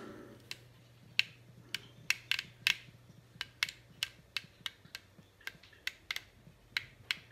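Plastic Lego pieces clicking and rattling as a built Lego model is handled and its parts moved, in a run of about twenty sharp, irregular clicks over a faint steady hum.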